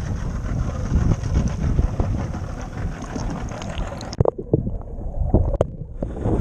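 Wind buffeting the microphone over choppy water sloshing at the surface. About four seconds in the microphone dips underwater: the sound turns muffled and dull, with a few sharp knocks, until it surfaces again near the end.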